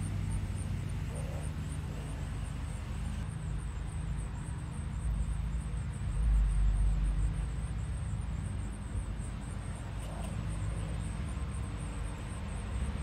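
Low, steady engine hum from a distant vehicle, swelling briefly about six seconds in.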